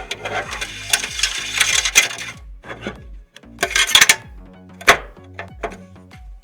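Hard small parts clicking and clinking as computer components are handled and fitted, in bursts of clatter with a sharp click about five seconds in, over background music with a steady beat.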